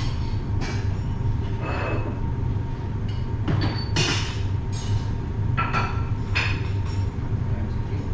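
A steady low machinery hum, with irregular light clicks and clinks of food and kitchenware being handled on a counter.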